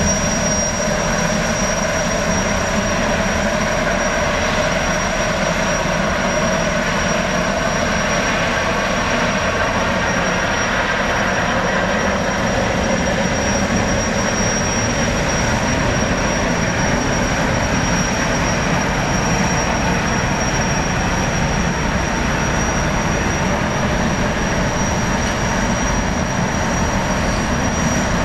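Gas turbines of a jetfoil running as it pulls away from the quay: a steady high-pitched whine over lower engine tones and the rush of its water jets.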